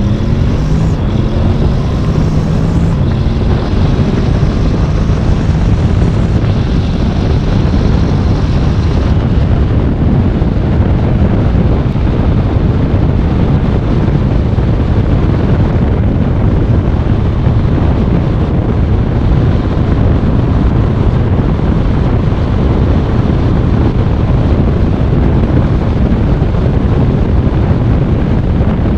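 Honda Forza maxi-scooter engine accelerating at full throttle, its note rising over the first few seconds, then largely buried under heavy wind noise on the camera microphone as speed builds.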